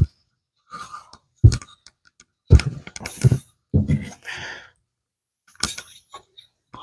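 Handling noises of stiff wire being pushed and worked through a small drilled hole in wood: a few sharp knocks and clicks and some scraping rubs, with pauses between them. The wire is snagging in a hole too tight for it.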